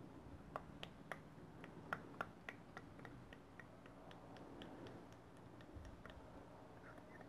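Fork oil pouring from a plastic bottle into a plastic measuring cup, heard as faint, irregular soft ticks, a few a second, that thin out after about six seconds.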